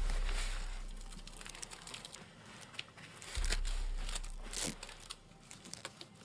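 Crumpled paper or plastic crinkling and rustling with many small clicks. Two deep low booms, one at the start and one about three and a half seconds in, each die away slowly and are the loudest sounds.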